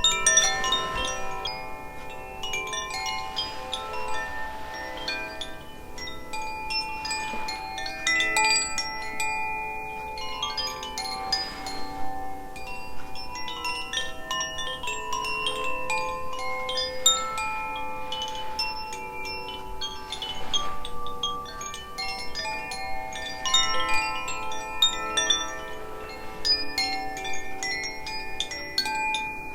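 Two Koshi chimes, the Aria and Ignis tunings, rung together: a continuous shimmer of overlapping bell-like tones, new notes struck again and again and left to ring.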